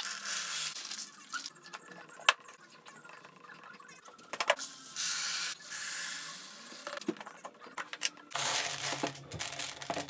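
Dried corn kernels and small pasta being poured into clear plastic storage containers: a hissing, rattling pour of many small hard pieces, in three spells, with scattered clicks and knocks from the containers being handled.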